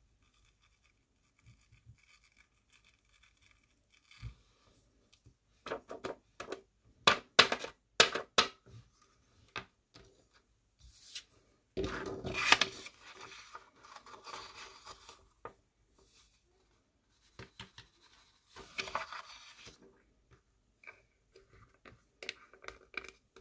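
Paper card and craft supplies being handled on a cutting mat: a quick run of sharp taps and clicks, then longer rustling and scraping, twice.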